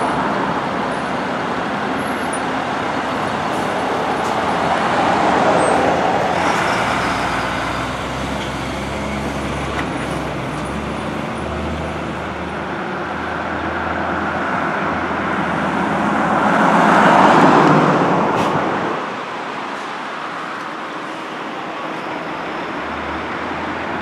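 Road traffic going by, among it a fire rescue truck's engine as the truck pulls away along the street. A vehicle passes close about two-thirds of the way through and the sound swells, then the low rumble drops off.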